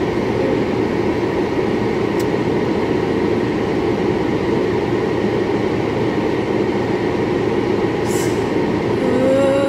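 Steady noise inside a car's cabin from the running vehicle, even and unbroken.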